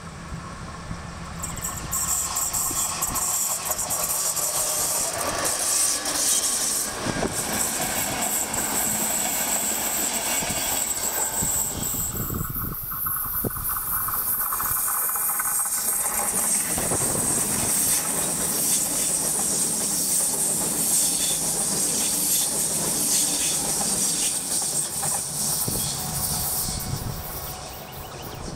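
Electric trains passing close by, one after another: a steady rush of steel wheels on rail with clattering over rail joints and a high hiss. The sound drops and changes briefly about twelve seconds in, then a second train runs past just as loudly.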